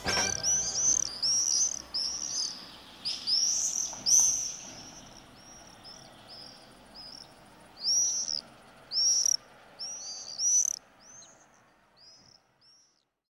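Common swifts giving shrill, high screaming calls, many in quick succession, with the calls thinning out and fading away near the end.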